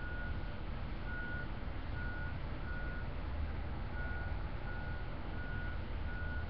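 A truck's reversing alarm beeping a single steady tone, about three beeps every two seconds, with a short break about three seconds in, over the steady low rumble of an engine.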